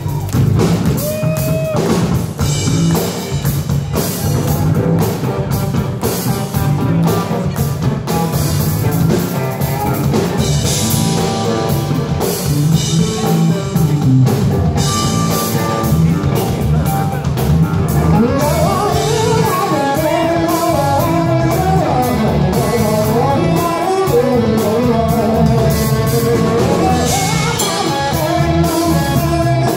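Live rock power trio playing loud: electric bass, electric guitar and drum kit driving a steady groove. A wavering lead melody comes to the front about eighteen seconds in.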